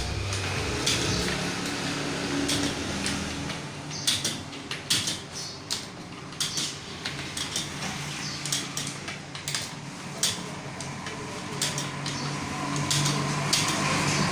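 Computer keyboard being typed on: quick, irregular runs of key clicks with short pauses between them.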